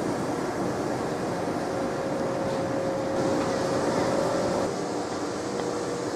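A train in a station hall: steady rumble and hiss with a faint steady whine over it, which eases a little about three-quarters of the way through.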